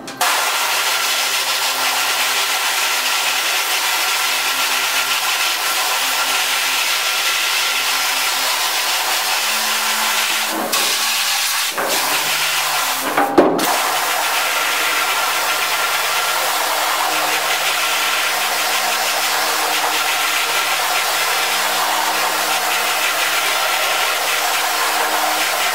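Pressure washer gun spraying water onto a screen-printing screen to wash out the emulsion stencil: a loud steady hiss of spray over the hum of the pump motor. The spray breaks off briefly two or three times about halfway through.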